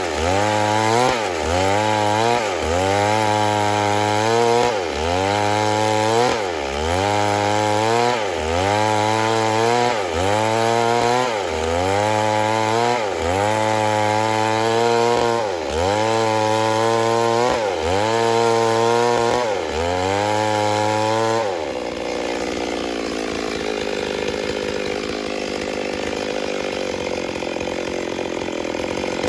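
Stihl MS 382 two-stroke chainsaw running, its engine speed repeatedly dropping and recovering about every second and a half. About twenty-two seconds in it changes to a steadier, rougher noise without the dips.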